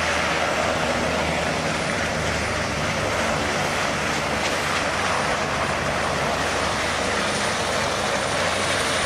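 Helicopter running, a steady loud mix of turbine whine and rotor noise with a low hum underneath.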